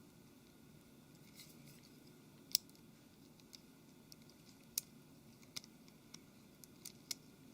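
Faint, scattered sharp clicks and taps of small parts and tools being handled on a smartphone's frame during reassembly, about nine in all, the loudest about two and a half seconds in.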